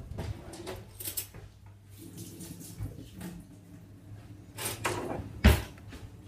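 Kitchen handling noises: scattered clicks and knocks as a jar of cashew butter is fetched, with the loudest knock about five and a half seconds in. A steady low hum runs underneath.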